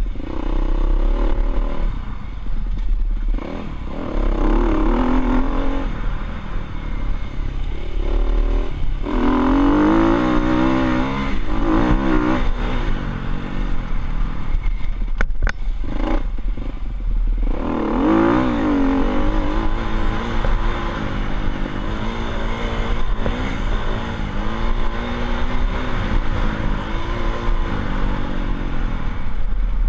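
Dirt bike engine running while ridden, its pitch climbing and dropping again and again as the throttle is worked, with two sharp clicks about halfway through.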